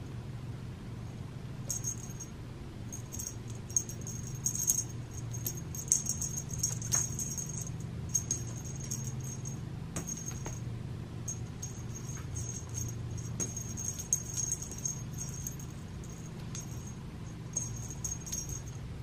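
Cat wand toy jingling and rattling in short, irregular bursts as it is jerked about on its string and batted by the cat, over a steady low hum.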